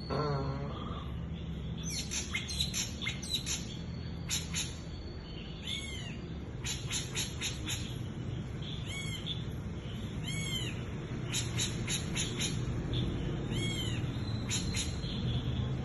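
Birds calling: many short, arched high chirps repeated in quick clusters throughout, over a steady low rumble. A lower wavering call falls in pitch right at the start.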